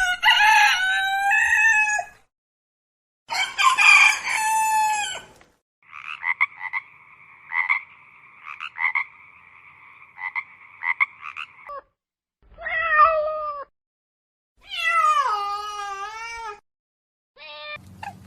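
A sequence of separate animal calls: a rooster crowing twice, then a frog croaking in quick pulses for several seconds, then a cat meowing a few times with falling pitch.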